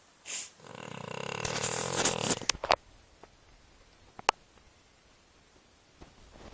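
Sleeping dog snoring: one long snore that grows louder over about two seconds and then breaks off. A single sharp click follows a little over four seconds in.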